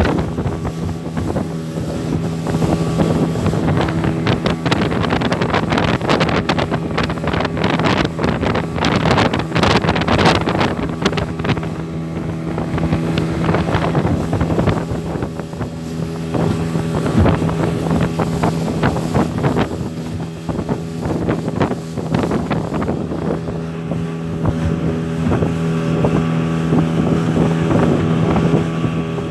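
Outboard motor of a small fishing boat running steadily under way, with wind buffeting the microphone.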